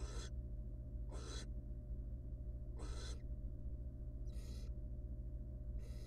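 Barn owl giving short raspy hisses, five of them about every one and a half seconds, over a steady low electrical hum.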